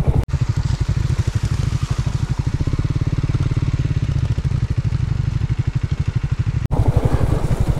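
Single-cylinder motorcycle engine running at low revs with an even, rapid beat, cutting out for an instant twice.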